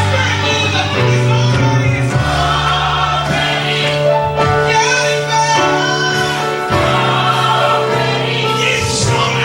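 Gospel choir singing with a band: steady bass and held vocal lines.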